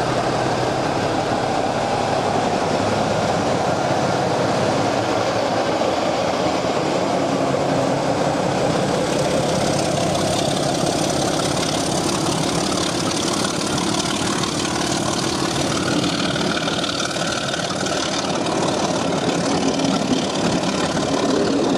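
Class 24 diesel locomotive engine sound effect running steadily at idle, with a faint high whine rising slowly through the middle.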